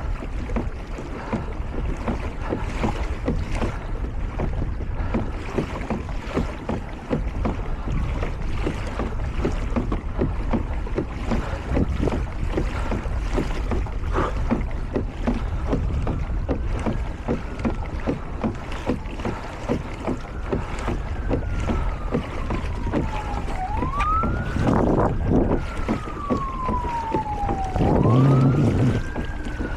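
Wind buffeting the microphone over water noise from a moving pedal kayak. From about halfway through, a distant siren wails, its pitch rising quickly and falling slowly, over and over.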